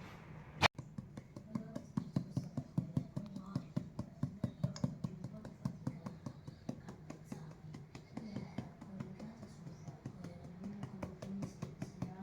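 Spatula stirring flour into cookie batter in a mixing bowl: quick repeated ticks and scrapes a few times a second, with quiet background music. One sharp click comes just under a second in.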